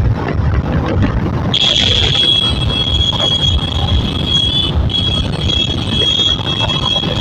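TVS Apache RR310's single-cylinder engine and wind noise on the microphone at about 70–77 km/h. About a second and a half in, a high, steady squeal sets in over it, breaks off briefly near the five-second mark, then carries on.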